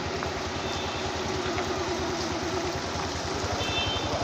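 A motor vehicle engine running steadily at idle, with a fast, even low throb.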